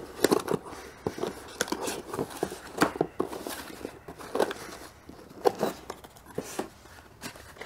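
Cardboard boxes being handled and opened by hand: flaps pulled open and boxes set down and lifted, giving irregular short knocks, scrapes and rustles of cardboard.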